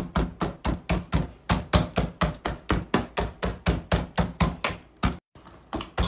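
Soft luqaimat dough being beaten in a bowl, a steady rhythm of wet slapping knocks at about four or five a second, broken off briefly about five seconds in.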